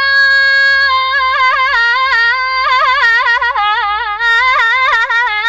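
A high voice singing a wordless Iraqi vocal line alone: one long held note, then quick trilling ornaments that drift slowly down in pitch.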